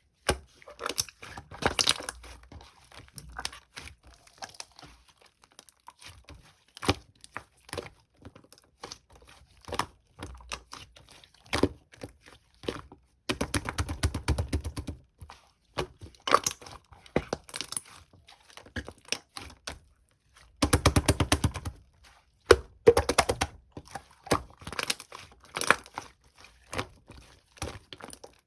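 Slime being squished, pressed and stretched by hand, giving irregular crackling pops and clicks, with two denser runs of rapid pops about halfway and about three-quarters through.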